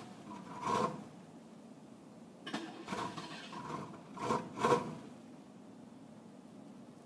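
1990 Cadillac's starter motor cranking in a series of short bursts without the engine catching. The bursts come about a second in, then in quick succession through the middle, and stop about two seconds before the end.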